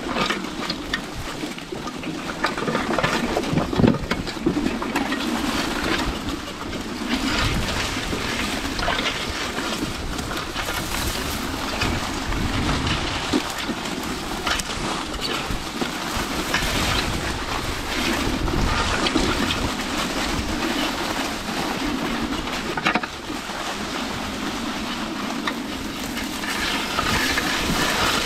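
Outrider Coyote electric 4WD ATV driving over leaf-covered ground: tyres crackling and crunching over dry leaves and twigs, over a steady low hum from the drivetrain.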